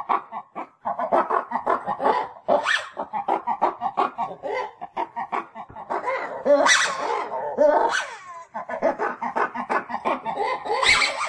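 Ring-tailed lemurs calling: quick runs of short yips and grunts, broken by louder, shrill cries about three seconds in, around seven and eight seconds, and just before the end.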